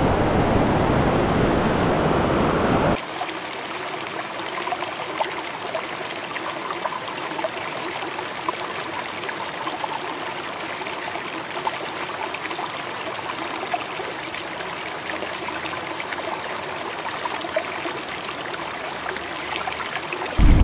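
Shallow river water running and swirling around a hand held in the current. The rush is louder for about the first three seconds, then drops suddenly to a steadier, quieter flow with fine trickling ticks.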